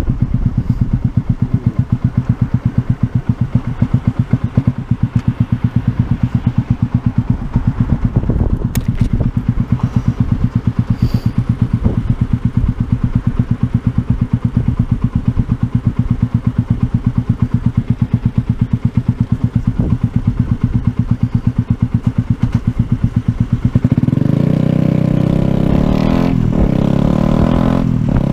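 Yamaha YZF-R125's 125 cc single-cylinder four-stroke engine idling with a steady low pulsing beat. Near the end it revs up and the bike pulls away, the engine note louder and climbing.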